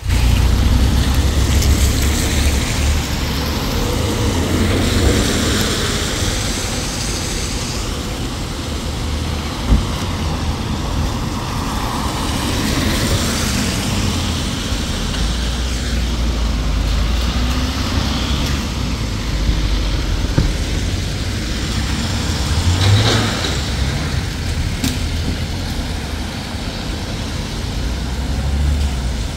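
Street traffic and vehicle engines on a wet road, with a low rumble that comes and goes and a single sharp knock about ten seconds in.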